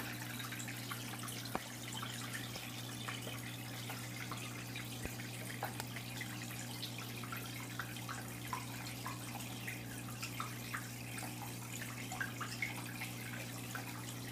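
A steady low hum with faint, scattered drips and small clicks.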